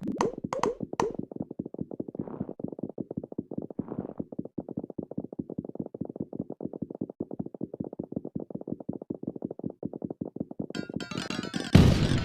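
Marbles rolling down a marble-run track: a fast, steady clatter of small clicks. Near the end it turns sharper, then breaks into a much louder burst of many marbles clattering together.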